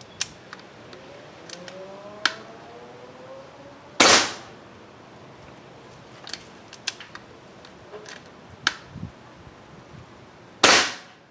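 Two shots from an Evanix Rainstorm II PCP air rifle, about six and a half seconds apart, each a sharp crack with a short tail. Several lighter clicks fall between them.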